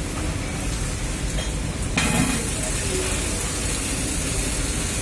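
Electric welding arc crackling and sizzling with an even hiss, which gets suddenly louder and brighter about two seconds in.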